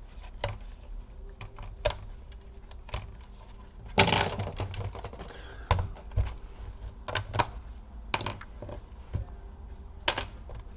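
Irregular clicks and taps of hands working on the plastic casing and small parts of an Asus X58L laptop during disassembly, with one sharp, louder click about four seconds in.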